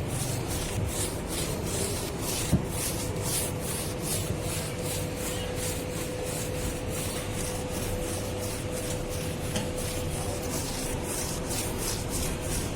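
Brush scrubbing detergent foam into a window air conditioner's condenser and chamber, in even strokes about three times a second.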